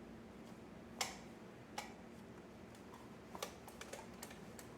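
A few scattered light plastic clicks and taps, irregularly spaced, from a toy foam-dart blaster and its magazine being handled.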